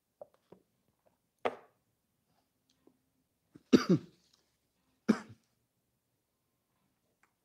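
A man coughing and clearing his throat in three short bursts, the loudest about halfway through.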